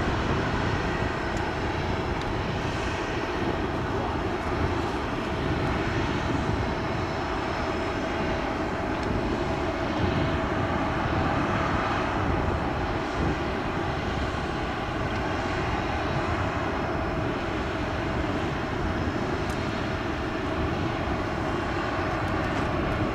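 Steady drone from an Airbus A340-600 on the ground as it is towed slowly by a tug, with a faint steady whine, at an even level and with no sudden events. Low wind rumble on the microphone.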